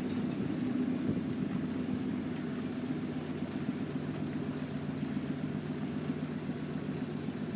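Motorboat's motor running steadily, an unchanging hum.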